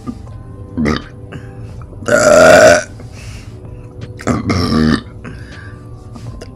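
A person burping loudly on purpose, twice, each burp lasting under a second, with a short, weaker throat sound about a second in.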